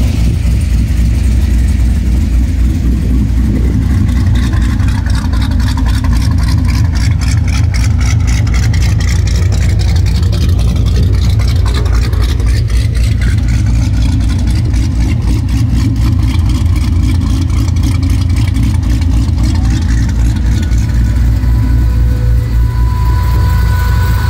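LS V8 swapped into a 1963 GMC pickup, idling steadily and loud, its exhaust pulses making up most of the sound.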